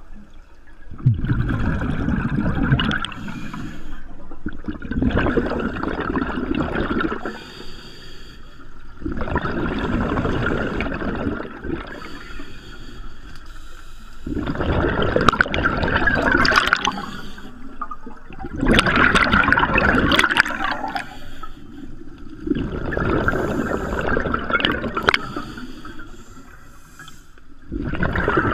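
A scuba diver breathing through a regulator underwater: bursts of exhaust bubbles gurgling out, about every four seconds, with quieter pauses for each inhalation.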